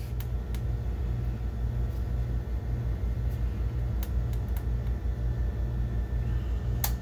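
Opened BenQ HT1075 DLP projector running: a steady low hum from its cooling fans and spinning color wheel, with a few faint clicks near the start and about four seconds in.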